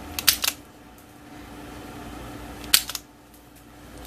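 Self-adjusting wire stripper clamping and snapping on a thin wire: a quick cluster of sharp clicks just after the start, then another sharp click with a smaller one a little under three seconds in.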